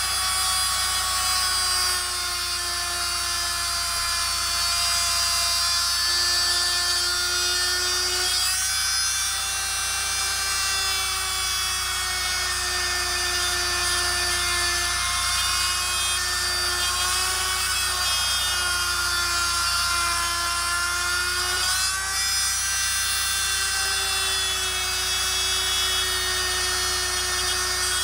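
Oscillating multi-tool running steadily, its blade cutting into the rubber tread lugs of a tractor turf tire. The motor's whine holds one pitch, wavering slightly now and then as the blade bites.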